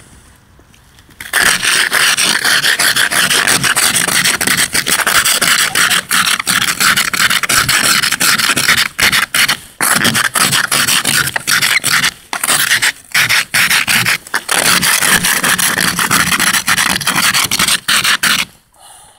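Plastic ice scraper rasping over an iced, snow-covered car windscreen in rapid strokes with brief breaks. It starts about a second in and stops shortly before the end.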